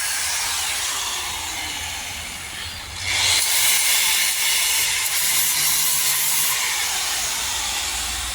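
Loud, steady hissing noise, like a jet of air or spray, that fades over the first few seconds, stops briefly, then starts up again about three seconds in and slowly eases off.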